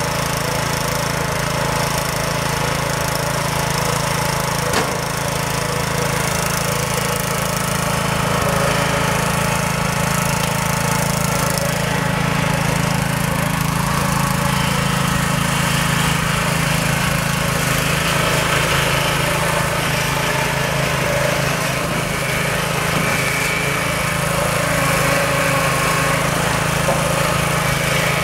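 Small gasoline engine of a Powerhorse wheelchair power-drive unit running steadily while it carries the wheelchair across grass, with one sharp click about five seconds in.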